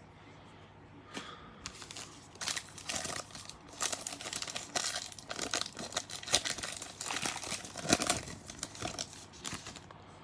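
Wrapper of a 2019 Donruss Elite trading-card pack crinkling and tearing as it is opened by hand, with irregular crackles throughout.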